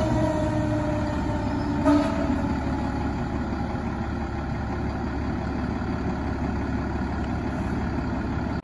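Fire engine passing and pulling away with its horn sounding. The horn's pitch sags slightly and stops about two seconds in with one short toot, leaving the truck's engine rumbling and slowly fading as it drives off.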